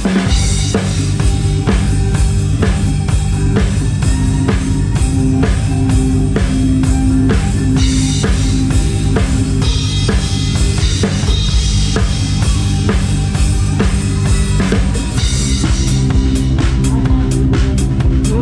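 Drum kit played live with a band: kick drum, snare and cymbals keep a steady beat over sustained bass notes, the drums loudest in the mix.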